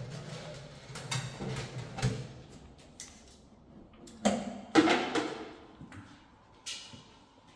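Dry green coffee beans rattling as they are scooped from a bucket and poured into a coffee roaster's hopper. They come in several irregular bursts, the loudest about four to five seconds in.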